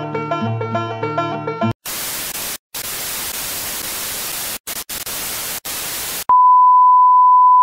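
Plucked-string music cuts off about two seconds in and gives way to TV static hiss, broken by a few brief dropouts. Near the end a loud, steady, high test-pattern beep begins: the tone that goes with colour bars.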